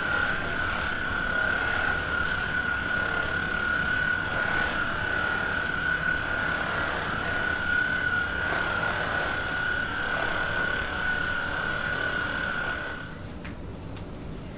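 Electric massage gun running with a steady high-pitched whine over a buzz, switched off about a second and a half before the end.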